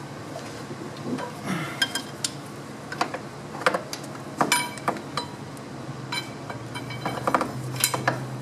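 Irregular metallic clinks and clicks of a socket and wrench on bolts in the engine of a 6.5 turbo diesel, a few of the knocks ringing briefly.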